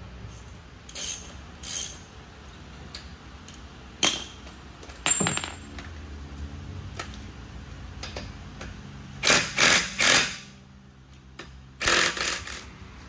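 Short bursts of a handheld power tool working at a car's front wheel: three in quick succession about two-thirds through and another near the end, among scattered clicks and clatter of metal tools.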